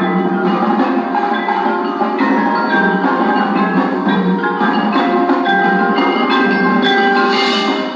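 Instrumental music with pitched, mallet-like percussion notes, playing at a steady loudness.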